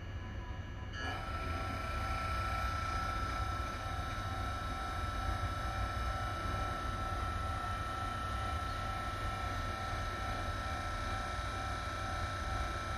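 JR Freight HD300 hybrid shunting locomotive running, with a low rumble throughout. About a second in, a steady multi-tone whine cuts in suddenly and holds.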